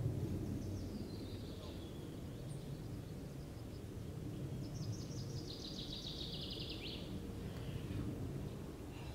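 Steady low wind rumble on the microphone, with a small songbird giving a short high falling call about a second in and a fast high trill lasting about two seconds midway.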